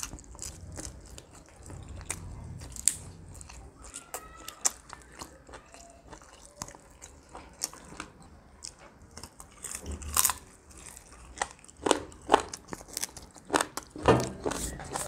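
Close-miked eating sounds of two people biting and chewing roasted chicken pieces, with many short sharp mouth clicks and smacks, coming thicker and louder in the last few seconds.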